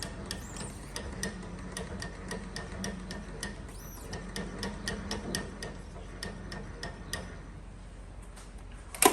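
Clausing Covel 4001 surface grinder running with a steady hum and an even, rapid ticking, about four ticks a second, as the wheel head is brought down. A single loud sharp click comes near the end.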